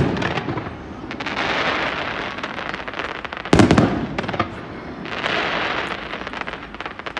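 Fireworks display: a loud bang about three and a half seconds in, amid dense crackling and long hissing, fizzing stretches from the bursting shells.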